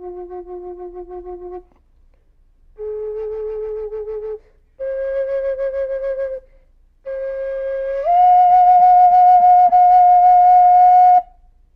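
Wooden Native American flute played solo in an improvised, slow phrase of long held notes that waver in loudness, separated by short pauses for breath. The line climbs, and its last and loudest note is held for about three seconds before the playing stops.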